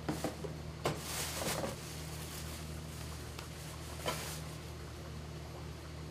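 Cloth and fur rustling in a few short bursts as hands handle a mink coat's lining, mostly in the first two seconds and once more about four seconds in, over a steady low hum.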